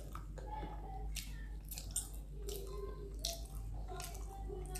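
Soft chewing and mouth clicks of people eating steamed momos, a few small separate clicks over a low steady room hum.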